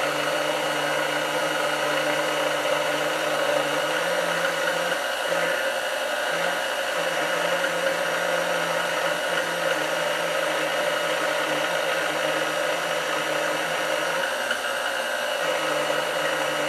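KitchenAid stand mixer motor running steadily, driving a pasta cutter attachment while a sheet of dough is fed through and cut into strands. Its hum holds an even pitch and level throughout, with only a slight wavering in the lowest tone around five to seven seconds in.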